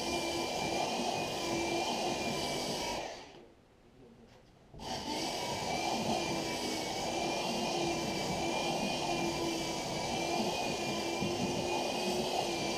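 Handheld electric sander running steadily against a plywood boat hull, rounding the bow to a curve. It is switched off about three seconds in, winds down, and starts again suddenly about two seconds later.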